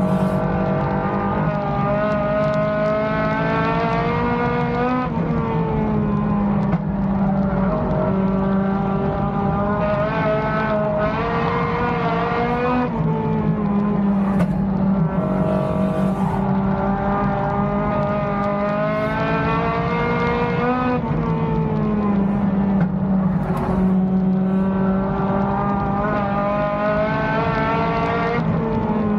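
Race car engine heard from inside the car, climbing in pitch as it accelerates along each straight and dropping off as the driver lifts for the turns, repeating about every eight seconds, lap after lap.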